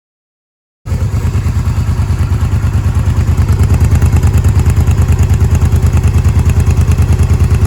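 Honda V-Twin Magna 250's V-twin engine running steadily through drag-pipe exhaust, a loud, fast, even pulsing that starts abruptly about a second in and cuts off suddenly at the end.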